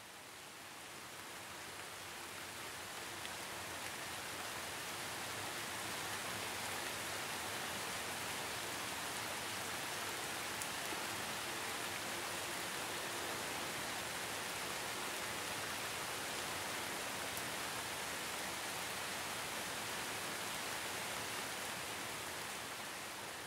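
A steady, even rushing noise with no tone or rhythm. It fades in over the first few seconds and fades out near the end.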